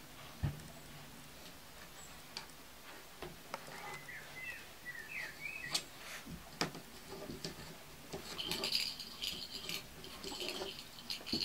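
Hungarian Kuvasz puppies scrabbling about a wooden whelping box: scattered scratches and knocks of paws on the boards, with a thump about half a second in. A few short high squeaks come around four to five seconds in, and a thicker run of high-pitched squeaking fills the last three seconds.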